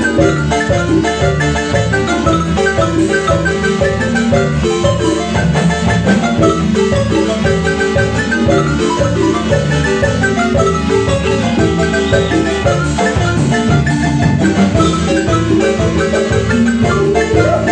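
Marimba music: many quick struck wooden-bar notes over a steady, pulsing bass line, in the Chiapas marimba style.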